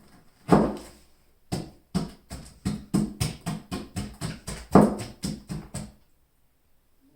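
Close-up chewing of juicy pineapple: wet crunchy chews at about three a second, with two louder bites, stopping about six seconds in.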